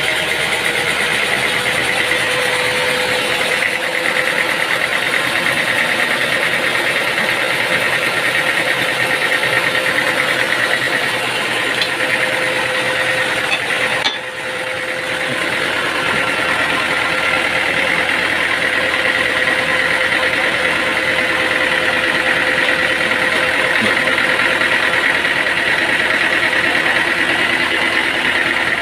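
Sawmill machinery running steadily with a constant whine over engine-like noise, briefly dipping about halfway through.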